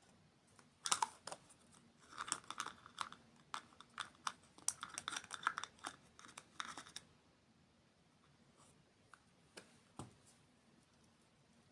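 Rapid crinkling, tearing and clicking from food packaging being handled, lasting about six seconds, then a few isolated clicks.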